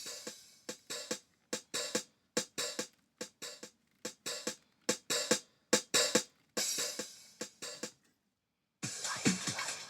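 Electronic music with choppy drum-machine hits separated by short gaps, played through a Pioneer DEH-2920MP car radio. After a brief full stop near the end, the fuller music comes back in.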